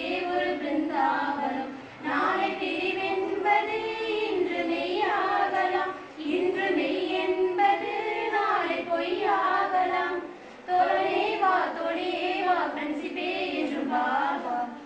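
Women's voices singing a song, in phrases of about four seconds with short pauses between them.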